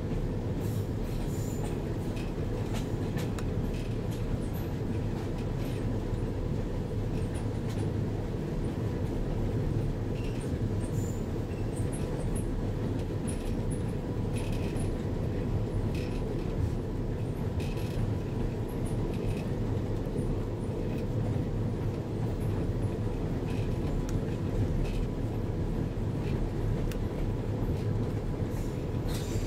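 Diesel locomotive under way, heard from inside its cab: a steady low engine rumble mixed with wheel-on-rail noise, with occasional faint ticks and rattles.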